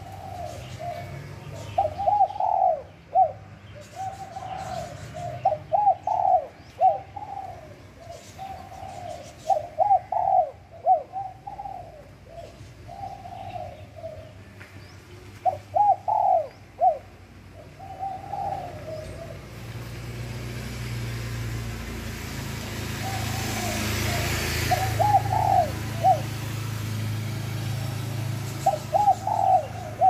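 Spotted dove cooing, phrase after phrase with short pauses between. In the second half a rushing noise swells up and fades under the calls.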